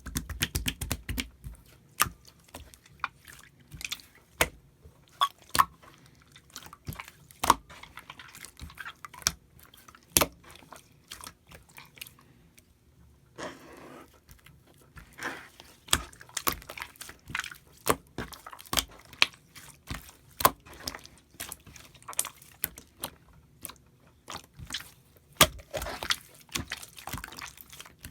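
White slime being squeezed and pressed by hand, making many sharp, irregular wet clicks and air-bubble pops, thickest at the start.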